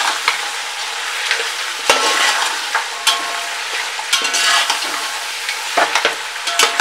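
Mutton pieces coated in ginger-garlic paste sizzling in hot ghee in a steel pot on high flame, while a metal slotted spoon stirs and scrapes them against the pot several times.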